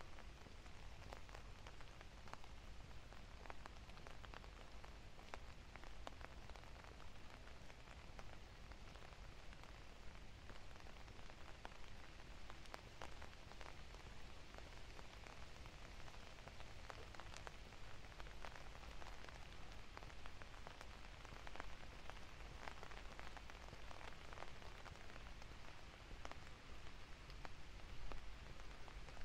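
Steady light rain falling, with many small ticks of individual drops hitting surfaces.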